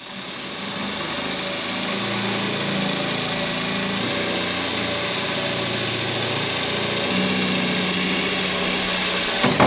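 Cordless drill running steadily as it bores a larger hole through the thin sheet-metal side of a pickup bed, the motor's pitch shifting slightly with load. It stops near the end.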